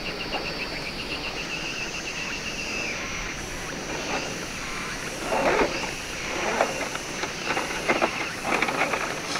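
Electric drive of a 1/10-scale RC rock crawler (Axial SCX10 II under a Range Rover Classic body) whirring in short, irregular bursts during the second half as it works its way up a rock ledge. Insects chirp in a fast, even pulse through the first few seconds.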